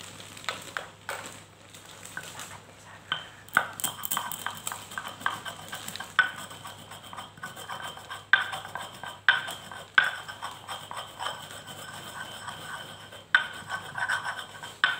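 Stone pestle crushing and grinding peppercorns on a flat stone mortar (Indonesian ulekan and cobek): irregular sharp knocks and gritty scraping strokes of stone on stone. The strokes come thick and fast from about three seconds in.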